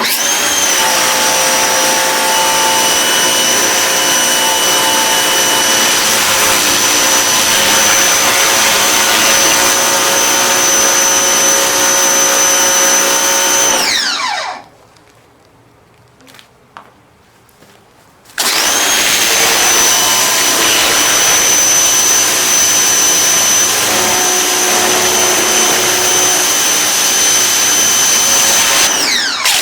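Ryobi 1600 PSI electric pressure washer running with a steady high whine over the hiss of the spray. About halfway through, its whine falls away and the motor stops for a few seconds. It then starts again and runs on, winding down and restarting once more near the end.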